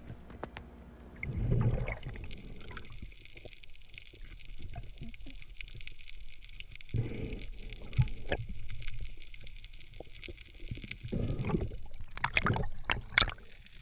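Underwater sound through a camera housing: muffled water movement and gurgling, with scattered clicks and knocks as the diver handles the speared fish and speargun. A sharp knock comes about eight seconds in and a few sharp clicks near the end.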